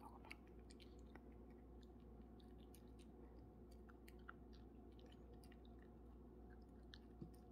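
Faint chewing: a small dog eating a treat from a person's palm, with scattered small crunchy clicks.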